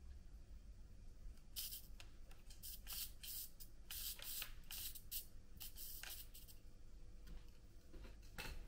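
Micro RC crawler's tiny electric motor and gears whirring in short bursts as the throttle is blipped with the wheels off the ground: about a dozen brief high-pitched bursts starting about a second and a half in, and one more near the end.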